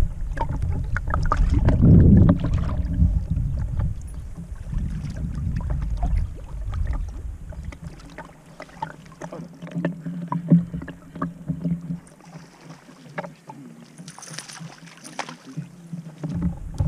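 Small fishing boat on open water: water lapping against the hull, with scattered light knocks and clicks. A low rumble of wind on the microphone fades out over the first six seconds.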